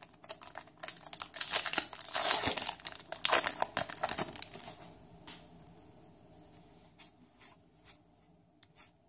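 Foil Yu-Gi-Oh! booster pack wrapper crinkling and tearing open for about four and a half seconds, followed by a few faint clicks.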